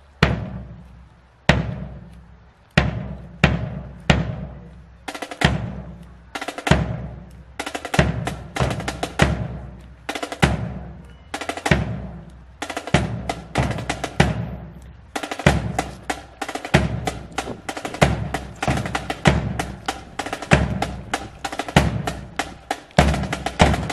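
Marching drum line playing a cadence: sharp snare drum hits and quick rolls over steady bass drum beats.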